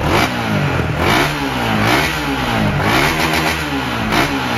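SYM VF3i motorcycle's single-cylinder four-stroke engine, fitted with a Rapido aftermarket exhaust, revved in quick throttle blips about once a second, the pitch climbing and dropping back each time, with a brief flutter of revs about three seconds in. The exhaust note is mild, not much louder than the engine itself.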